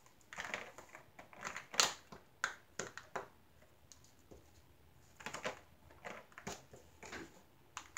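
Small clear plastic storage jars clicking and knocking against each other and against a clear plastic storage case as they are set into its compartments: scattered light clicks in small clusters, the sharpest about two seconds in.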